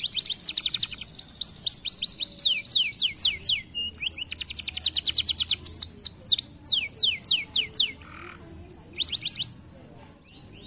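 Canary singing a long song of fast trills, each a rapid run of repeated down-sweeping notes, the speed changing from one trill to the next. It breaks off about eight seconds in and adds one short trill a second later.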